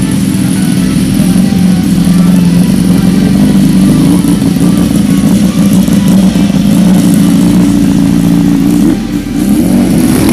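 A vehicle engine running loud and steady close by, with a deep rumble that shifts near the end.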